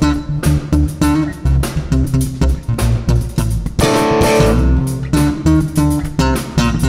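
Instrumental jazz fusion band playing live: an electric bass carries a prominent moving bass line over a drum kit with cymbals, with electric guitar alongside.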